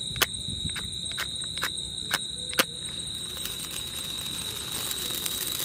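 A safety match is struck on its matchbox to light a small hand-held sparkler, which then burns with a fizzing hiss of sparks that grows louder toward the end. Before it catches there is a run of evenly spaced sharp clicks, about two a second, which stops about two and a half seconds in. A steady high-pitched tone runs underneath throughout.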